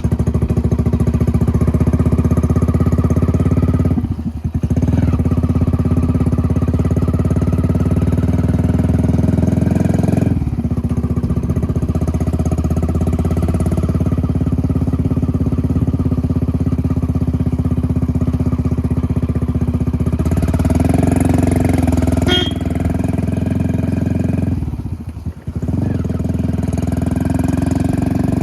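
Hero HF Deluxe's single-cylinder four-stroke engine running through a newly fitted aftermarket RX100-style silencer, a steady exhaust note that dips briefly three times. The silencer sits properly sealed, with no leak noise from the joint.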